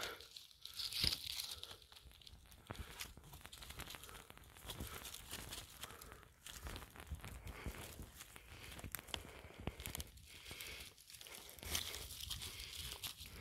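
Dry twigs, conifer needles and dead leaves crackling and rustling in irregular handfuls as a hand rummages through forest-floor litter close to the microphone.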